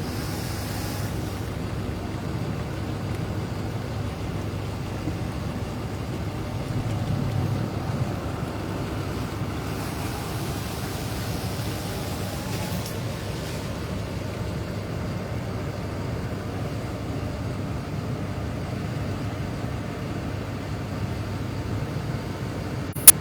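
Steady low rumbling outdoor noise with no clear rhythm or pitch, and a single sharp click just before the end.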